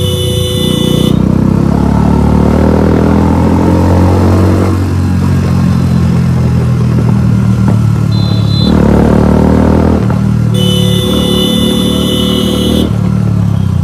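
Motorcycle engine running and revving up twice as it accelerates, its pitch climbing each time. A vehicle horn sounds in two long steady blasts, one ending about a second in and another about ten seconds in, with a short high beep around eight seconds in.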